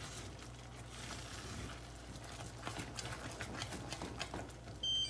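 Thick sugar, butter and evaporated-milk fudge mixture boiling in a pot and being stirred with a wooden spoon: faint bubbling and scattered light clicks over a steady low hum. Near the end a kitchen timer beeps, marking the end of the four-minute boil.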